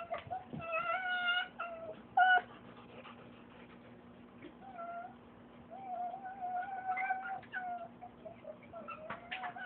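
Pet fox whining excitedly in a string of high, wavering calls, some drawn out for a second or two, with a short, louder squeal about two seconds in.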